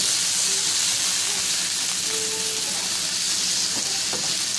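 Small shrimp frying with sliced onion, garlic and dried red chillies in hot oil in a non-stick frying pan: a steady sizzle, with the spatula scraping through the pan as they are stirred, a few sharper strokes near the end.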